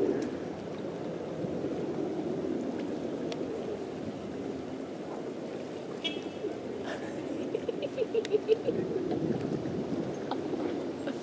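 Beach ambience: a steady rush of surf and wind, with a brief bird call about six seconds in and a few short, sharp cries around eight seconds, typical of sea gulls squawking as they are fed.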